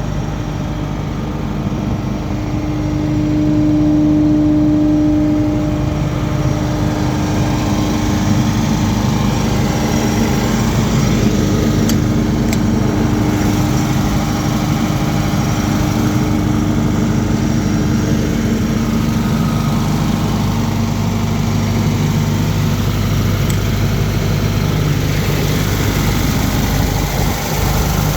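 Diesel engine of a Comacchio MC 800 drilling rig running steadily at idle, swelling louder for a couple of seconds about four seconds in.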